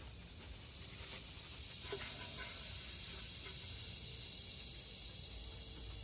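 Cicada (kuliglig) calling: a steady, high-pitched buzzing hiss that swells in loudness over the first couple of seconds and then eases slightly near the end.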